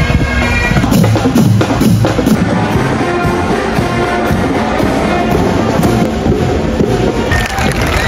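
Parade band music: drums beating, with brass playing.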